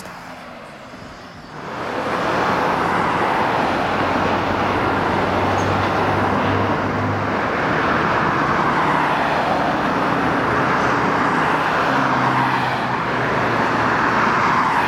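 Road traffic noise: a steady mix of tyre noise and car engines that swells up about a second and a half in and then holds.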